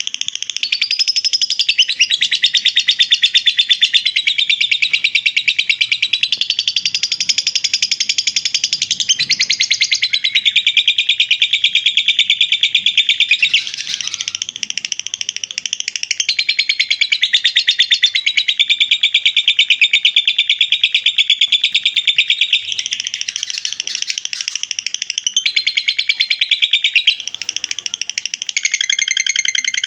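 Lovebird singing its long 'ngekek' chatter: an unbroken stream of very fast, shrill notes that shifts in pitch every few seconds without pausing.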